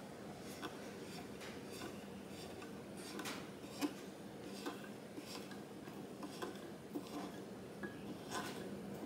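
Steel screw hook being twisted by hand into a wooden board: faint, irregular small clicks and ticks as the threads bite into the wood, with one sharper click about four seconds in.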